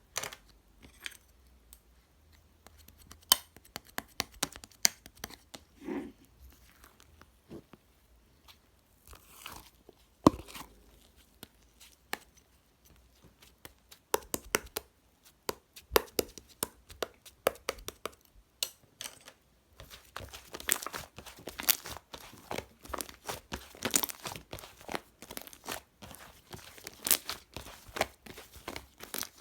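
Hands kneading and stretching toy slime: sticky clicks, pops and crackles, sparse at first and coming thick and fast from about two-thirds of the way in.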